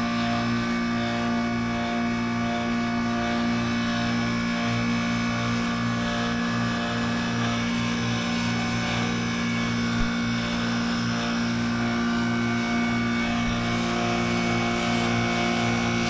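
2003 AirEase Concept 1000 heat pump outdoor unit running with a steady hum of several low tones, with one short click about ten seconds in.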